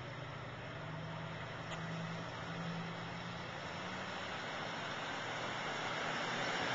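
A motor vehicle's engine running over steady outdoor street noise. Its low hum fades out about halfway through while the general noise grows louder.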